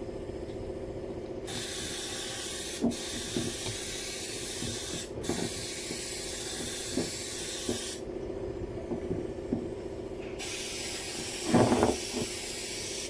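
Hissing spray that starts and stops sharply: one stretch of about six seconds with two brief breaks, then another starting near the end. Underneath runs a steady hum, with a few light knocks and a louder knock late on.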